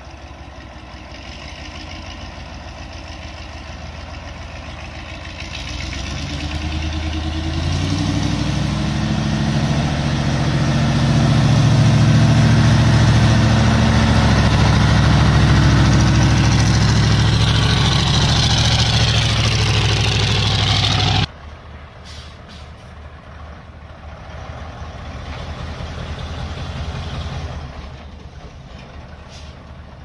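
Diesel engine of a Mitsubishi Fuso heavy truck, loaded with logs, pulling up a steep dirt track. It grows louder as it draws near, with a deep, steady engine note, then drops suddenly about two-thirds of the way through to a much quieter running sound.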